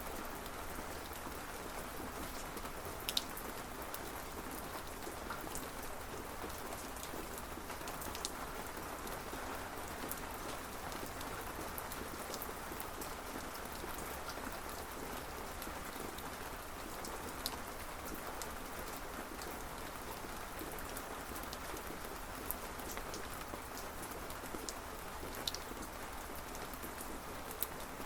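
Steady rain falling, with a few sharper individual drops ticking close by now and then.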